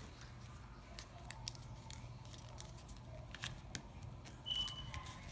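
Folded origami paper being opened out by hand: faint crinkling and crisp little clicks of the creased paper over a low steady hum. A brief high squeak comes about four and a half seconds in.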